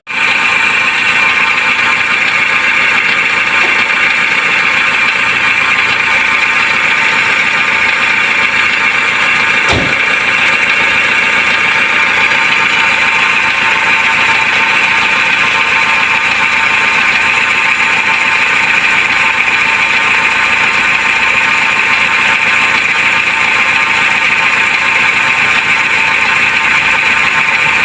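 Chevrolet Spin's engine idling steadily, with a strong steady high-pitched hiss over it, running smoothly on a newly fitted fuel pump assembly that cured its crank-but-no-start fault from low fuel pressure. A single sharp click about ten seconds in.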